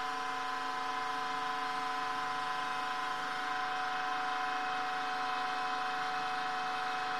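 Hydraulic press pump unit running with a steady, even hum of several fixed tones while the ram slowly presses down under rising load.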